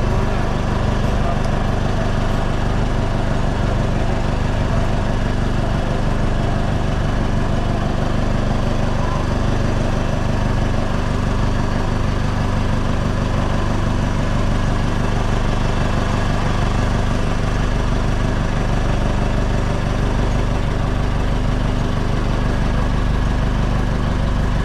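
Engine on board a basnig outrigger fishing boat running steadily at idle, a constant low hum with a fast, even beat.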